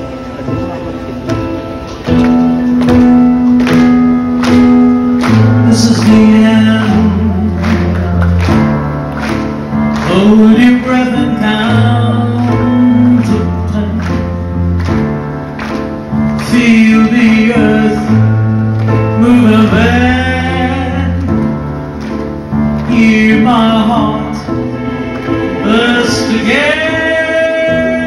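Live band music: drum kit, bass and guitar playing a steady song, the bass line stepping between held notes, with a woman's singing voice coming in about ten seconds in. Heard from among the audience under a large tent.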